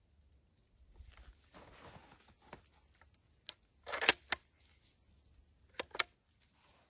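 Cobray Terminator 12-gauge shotgun being handled. A rustle of clothing is followed by a few sharp metallic clicks and clacks as the gun's action is worked, the loudest about four seconds in and two more near the end.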